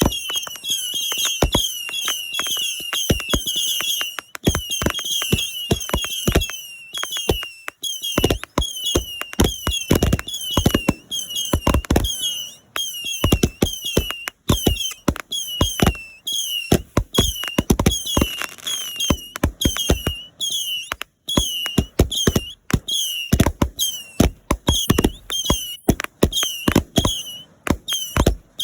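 Fireworks show: aerial shells bursting in a rapid, continuous barrage of booms and bangs, several a second. Behind them a high chirping tone repeats evenly, about two to three times a second.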